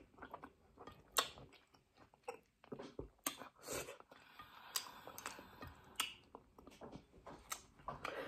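A person chewing a mouthful of fufu and stew with the mouth closed: faint, irregular wet smacks and clicks.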